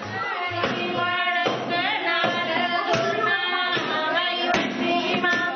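A group of women singing Punjabi boliyan (folk couplets) together, their voices overlapping loudly, with a few sharp beats among them.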